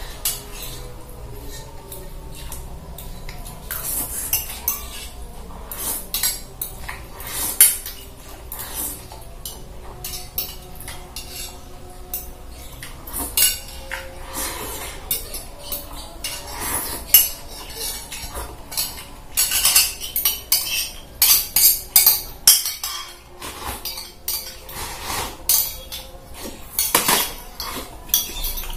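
Spoon and fork clinking and scraping against a plate while fried instant noodles are eaten, in a string of irregular taps that comes thicker and louder in the last third.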